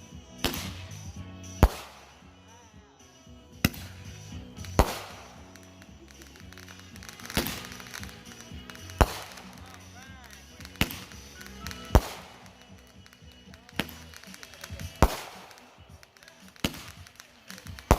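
A two-minute consumer firework cake firing its shots: about a dozen sharp bangs spaced one to two seconds apart, each trailed by crackle, with a short rising-and-falling whistle about ten seconds in.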